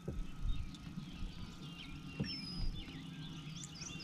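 Songbirds chirping and whistling in quick short notes, busier in the second half, over a low uneven rumble, with a soft knock about two seconds in.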